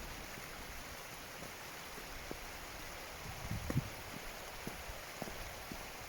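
Steady rush of running water, with scattered light knocks from footsteps on stones, the loudest a small cluster a little past halfway.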